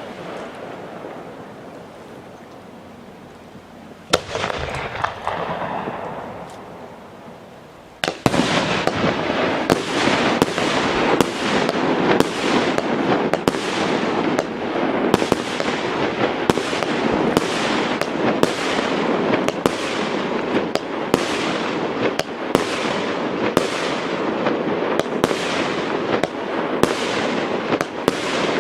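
Aerial fireworks bursting close by: one shell bang about four seconds in, its crackle fading away, then from about eight seconds a rapid barrage of shell bursts, roughly two a second, over a continuous crackling.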